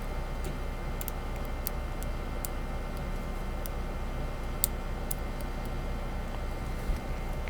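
Small, irregular metallic clicks and ticks of a hook pick working the pins of a Brinks padlock under light tension, with a sharper click about four and a half seconds in and another near the end.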